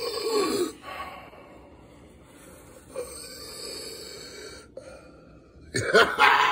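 A person breathing close to the microphone: a loud breathy sound that stops within the first second, then a fainter one in the middle.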